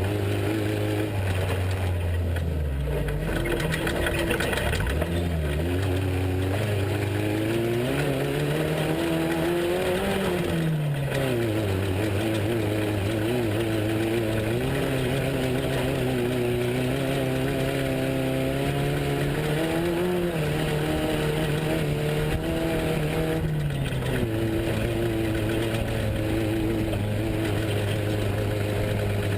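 Off-road race truck's engine running throughout, its revs rising and falling several times as it accelerates and eases off, with steadier stretches in between.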